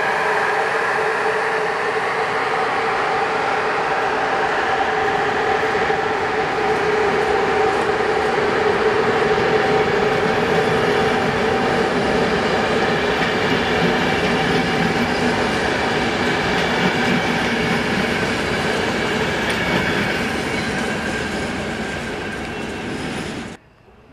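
Electric-hauled passenger train passing: a steady rolling rumble of coach wheels on the rails, with several held tones above it. It eases off slowly as the last coaches go by, then cuts off suddenly near the end.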